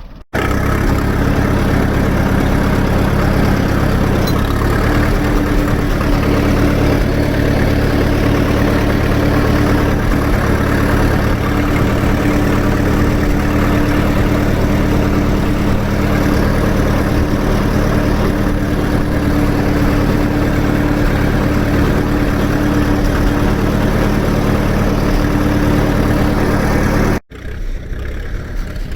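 Standard Fordson tractor's four-cylinder side-valve engine running steadily. Near the end the sound cuts abruptly to a quieter engine running.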